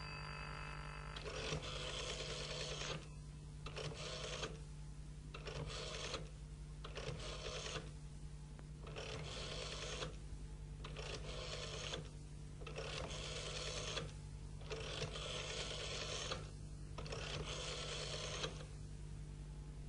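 Experimental 1970s cassette music. A bell-like ringing tone dies away about a second in. Then comes a steady low hum with about nine separate bursts of hissing, mechanical-sounding noise, each up to about a second and a half long, with short gaps between.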